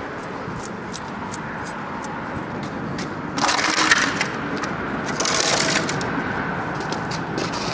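Footsteps scuffing and crunching on a gritty concrete sidewalk, a run of sharp little ticks. Two short bursts of hiss come about three and five seconds in.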